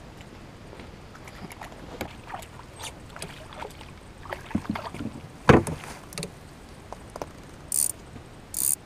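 Scattered clicks and knocks of gear being handled in a small fishing boat, with one loud thump on the boat about halfway through. Two short hiss-like bursts come near the end.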